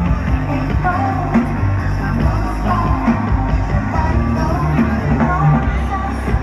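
Live electronic music played loud over a concert sound system: a heavy bass line under a sung vocal melody.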